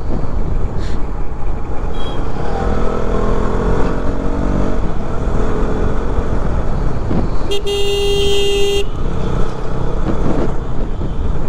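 KTM RC 200's single-cylinder engine running under way with wind rumble on the microphone, its note rising as it accelerates between about two and five seconds in. A vehicle horn sounds once for just over a second near eight seconds in.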